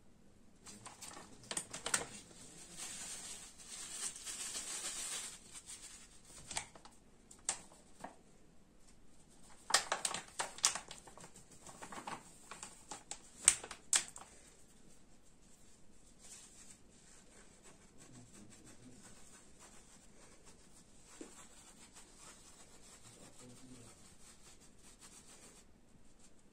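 A small plastic sieve being shaken and tapped to dust powdered sugar: light taps and dry rustling, with crinkling of the plastic sugar packet. Most of the taps fall in the first half, then only faint handling sounds.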